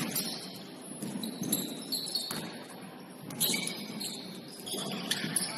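Basketball shoes squeaking on the court in several short high squeals, with a few knocks of the ball bouncing.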